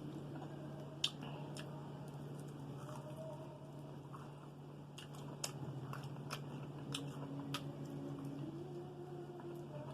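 A person chewing and biting food, with scattered sharp wet clicks and crunches, over a steady low hum.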